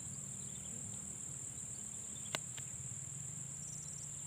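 Insects, tagged as crickets, chirring in a steady high-pitched chorus, with one sharp click a little past two seconds in.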